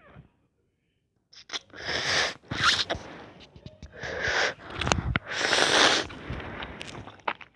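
Ramen noodles being slurped in four or five loud, hissing bursts, starting about a second in.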